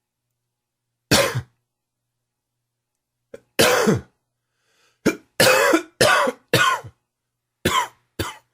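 Man's hacking smoker's cough: one cough about a second in, another after a pause, then a quick run of harsh coughs and two more near the end.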